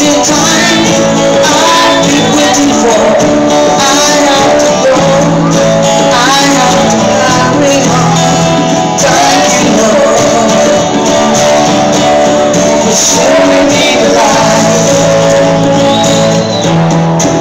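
A live band playing loud, with a singer's vocal line over the instruments and a tambourine in the mix.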